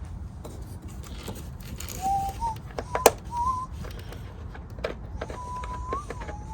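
Light metallic clicks and clinks from hand tools and the loosened battery hold-down bolt and bracket being worked out, with a few thin whistling squeaks, one drawn out for about a second near the end.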